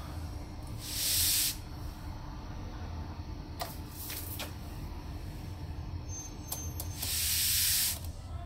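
Two sudden bursts of hissing, a short one about a second in and a longer one near the end, with a few light clicks between them over a steady low hum.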